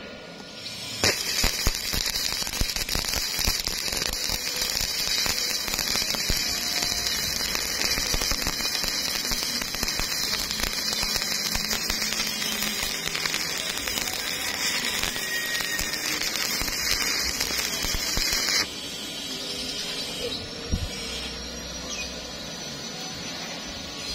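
Stick welding arc crackling and sizzling steadily as a bead is laid in steel, then cutting off suddenly about three-quarters of the way through.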